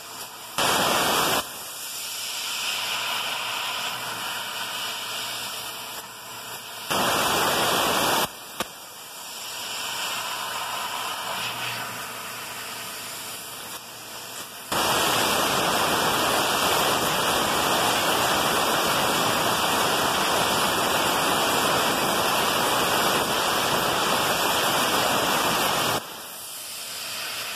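CNC plasma cutting torch firing its arc, a loud even rushing hiss that switches on and off abruptly: two short bursts of about a second each early on, then one long cut of about eleven seconds from about halfway in. A quieter steady hiss continues between cuts.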